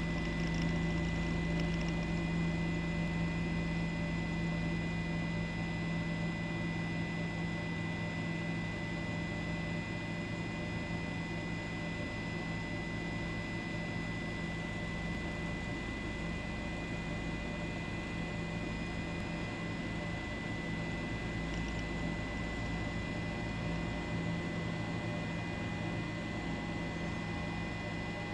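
Steady mechanical hum with a constant high whine, unchanging throughout.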